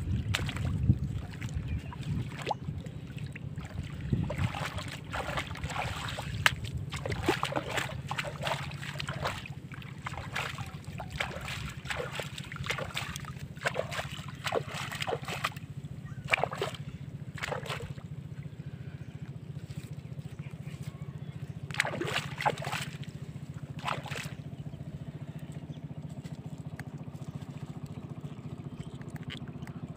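Shallow muddy pond water sloshing and splashing as hands dig and grope in it, in bursts through the first half and again briefly later on, over a steady low rumble.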